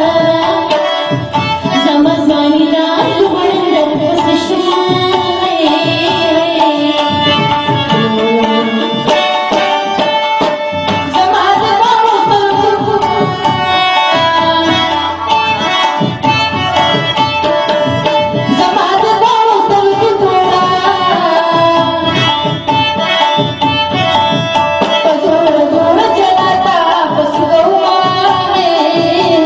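Pashto tappay sung live by a male singer into a microphone, with tabla accompaniment playing a steady rhythm under the voice.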